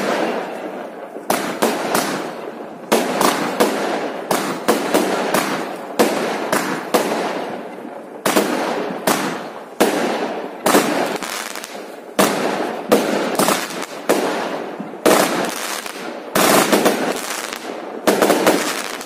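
Aerial fireworks bursting in quick succession: a rapid string of sharp bangs, about two a second, each trailing off in an echoing tail.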